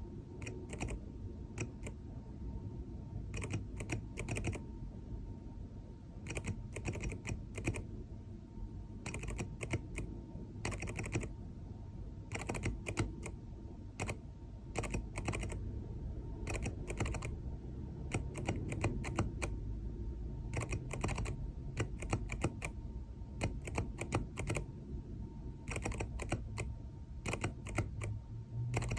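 Mechanical keyboard switch on a one-key '1% keyboard' being tapped out in Morse code: quick groups of clicks with short pauses between them.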